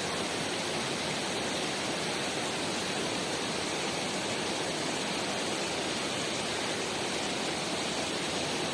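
Steady rushing of a waterfall and river, an even unbroken wash of water noise.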